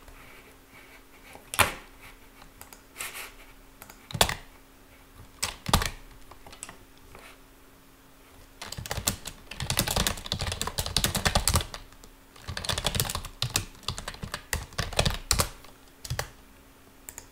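Typing on a computer keyboard: a few separate clicks, then two fast runs of keystrokes with a short pause between them.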